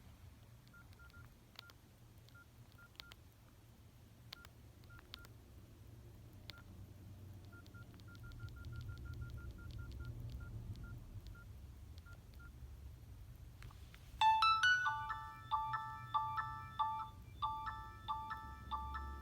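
Nokia 6681 mobile phone: short single-pitch keypad beeps and button clicks come irregularly, singly and in quick runs, as its keys are pressed. About 14 seconds in, a ringtone starts playing loudly through the phone's speaker as a melody of short notes in a repeating phrase.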